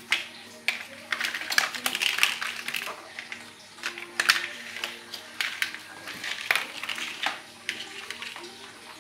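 Plastic toy car track pieces clattering and clicking as they are handled and fitted together, with quick irregular knocks and snaps.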